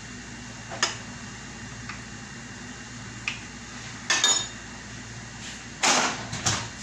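Kitchen clatter of dishes and utensils: a few sharp knocks and clinks, one ringing clink about four seconds in, then a longer, louder clatter near the end, over a steady low hum.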